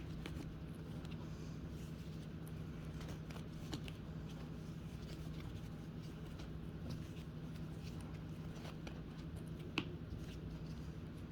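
Faint rubbing and light clicks of a cloth wiping down the grill of a Holmes Blizzard fan, with a sharper click near the end, over a low steady hum.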